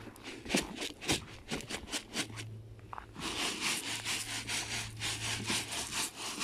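Footsteps crunching on packed snow, then from about three seconds in a fast, rhythmic scraping of a hand digging into coarse rock salt in a plastic bucket.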